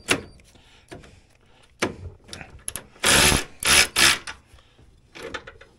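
Metal hand tool clicking and clanking against the snowmobile's drive parts as the drive-belt tension adjuster is set, with two louder, harsher spells about three and four seconds in.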